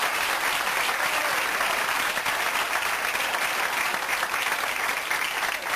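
Studio audience applauding steadily after a joke.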